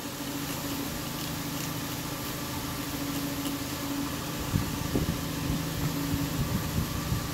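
A steady mechanical hum with a held low tone, from a machine running in the background, with a few light handling knocks about halfway through.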